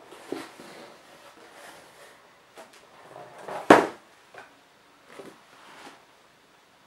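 Handling of cardboard and stiff paper: a large card is worked out of a cardboard subscription box with rustling and scraping. About three and a half seconds in there is one sharp knock as the box is set down on the wooden table, and a few lighter knocks and rustles follow.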